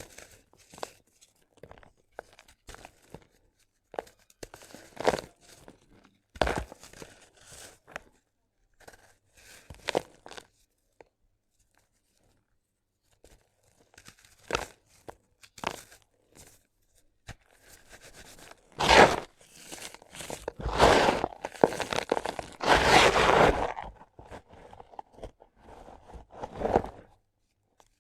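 Gritty sand cement chunks being crumbled, crunching in irregular bursts. A pause of about two seconds comes about a third of the way in; the crunching is loudest and densest in the second half.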